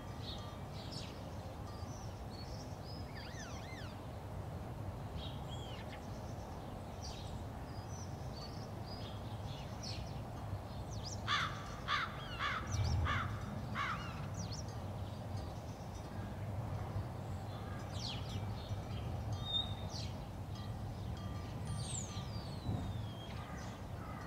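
Birds calling over a steady low rumble of outdoor background noise, with a quick run of about five louder calls near the middle.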